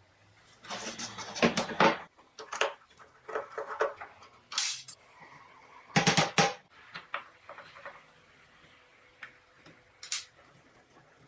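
Irregular clinks, knocks and short scrapes of metal tools and parts being handled, in loose clusters with pauses between; the loudest come about a second and a half in and again about six seconds in.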